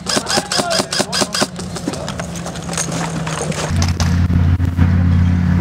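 Airsoft rifle firing a rapid string of shots, about seven a second, for roughly the first second and a half. Near the end, a loud, steady low drone comes in.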